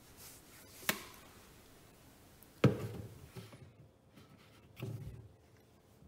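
A plastic bucket being handled and set in place under the sink pipework. There is a sharp tap about a second in, a heavier knock a little before halfway, and a softer bump near the end.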